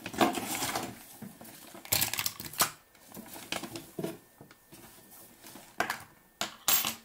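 Rummaging through a goodie bag to pull out its contents: irregular rustling and crinkling of bags and packaging, with a few sharp clatters, the loudest about two seconds in.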